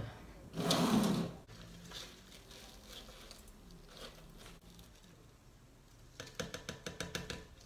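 A thin plastic nursery pot being handled, squeezed and slid off a pothos root ball, with soil rustling. There is a short burst of rustling about a second in and a quick run of small crackling clicks near the end.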